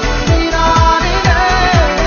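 Pop song with a steady beat: a deep kick drum that drops in pitch lands about twice a second under a wavering melody line.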